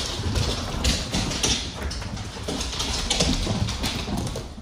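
Pit bulls running and play-chasing across a hardwood floor: many quick claw clicks, scrabbling and light knocks.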